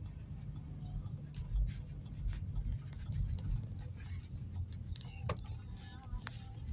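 Low steady rumble of the Audi A4 B6's 1.9 TDI four-cylinder turbodiesel and tyres on a snowy road, heard from inside the cabin. Scattered clicks and rubbing from the phone being handled sound on top.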